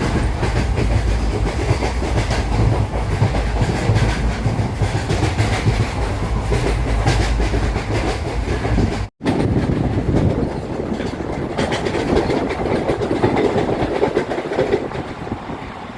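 Passenger train running at speed, heard from on board: a steady rumble with wheels clattering over the rail joints. The sound cuts out completely for a moment about nine seconds in, then the clatter resumes.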